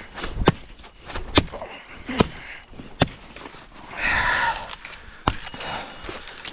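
Hatchet blows chopping through a thin, dry sapling to cut a stake: about five sharp strikes, a second or so apart, with a short scuffing noise between the fourth and the last.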